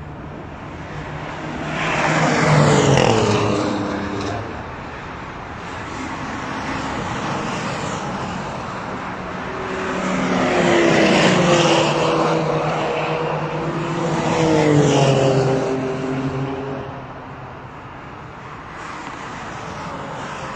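Alfa Romeo track-day cars passing one after another at speed, three loud pass-bys, each engine note dropping in pitch as the car goes by, with a quieter engine note from the track in between.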